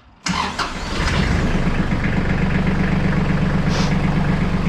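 Iseki TLE3400 compact tractor's diesel engine started after glow-plug preheat: it cranks and catches about a quarter second in, then settles into a steady idle. First run after the oil and filter change, pushing fresh oil through the new filter.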